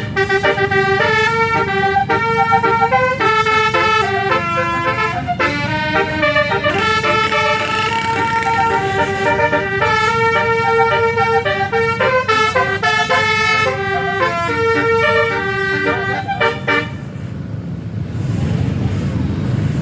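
Bus 'telolet' Basuri multi-tone horn playing a tune in quick stepped notes over the bus's engine running. The horn stops about three seconds before the end, leaving only the engine.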